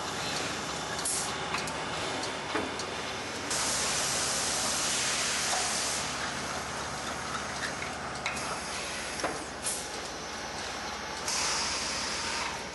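Automated metal-tag stamping and bending machinery running, with compressed air hissing out of its pneumatics in two long bursts, one of about two and a half seconds a few seconds in and another near the end. Scattered short clicks and knocks of the mechanism sound over a steady machine hum.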